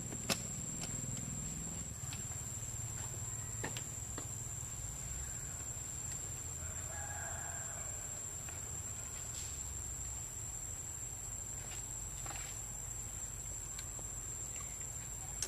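Forest ambience: a steady high-pitched insect whine over a low rumble, with a few faint clicks and a brief animal call about seven seconds in.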